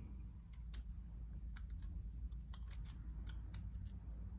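Faint, scattered small clicks and light scrapes of a thin gasket being slid down over the cylinder studs of a two-stroke motorized-bicycle engine.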